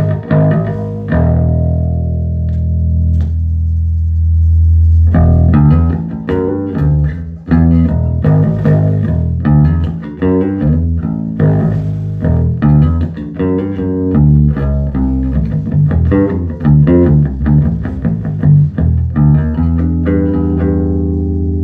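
Electric bass guitar played through a 1974 Ampeg B-15N tube bass amplifier, freshly recapped: a low note held for a few seconds, then a long run of quicker plucked notes, ending on another held note.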